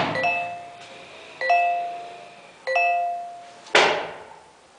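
Doorbell chiming three times, the same ringing note about every 1.3 seconds and fading after each press, then a sharp bang near the end.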